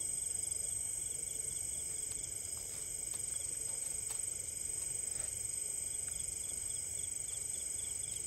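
Insects droning steadily at a high pitch, with a low rumble underneath.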